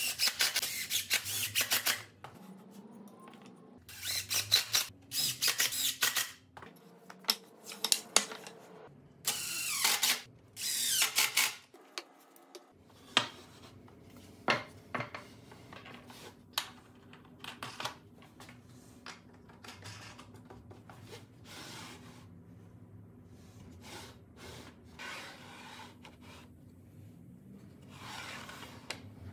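Three bursts of scraping or rasping on wood, each lasting about two seconds, followed by scattered sharp clicks and light knocks of wooden parts being handled.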